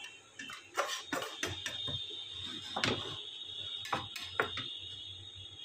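Metal spatula scraping and knocking against a frying pan as an omelette is folded over: several light knocks and scrapes.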